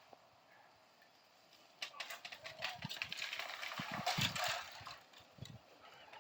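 Cut bamboo stalks and dry leaves rustling and crackling as they are handled, from about two seconds in until near five seconds, with a few low knocks.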